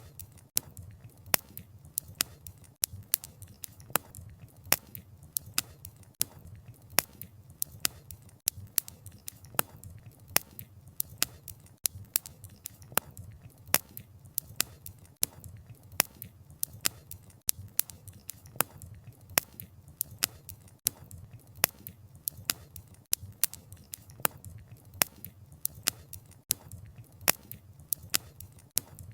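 Wood fire crackling: logs popping and snapping in quick, irregular sharp cracks, several a second, over a soft low rumble of the flames.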